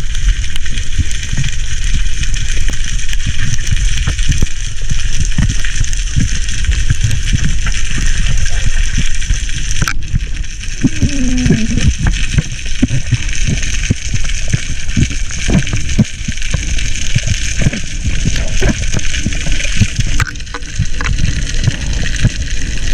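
Underwater sound picked up by a diver's camera: a steady hiss and churning water peppered with many short clicks and crackles. A brief wavering low tone comes in about eleven seconds in.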